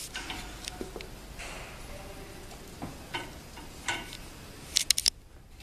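Light scattered clicks and small knocks from a swing-away heat press being handled. Near the end there is a quick run of sharp clicks.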